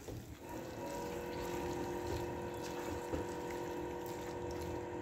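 A steady mechanical hum of several held tones, from a motor such as a pump or fan, starts about half a second in and carries on, over soft stirring of a thick chicken curry in a nonstick pan with a silicone spatula.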